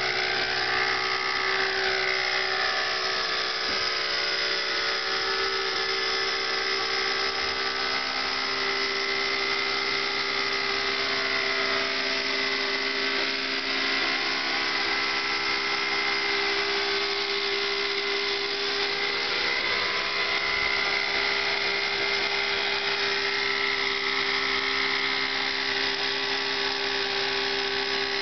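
Thunder Tiger Raptor 50 RC helicopter's nitro glow engine and rotors running in a steady high whine while it hovers, the pitch rising and dipping slightly now and then.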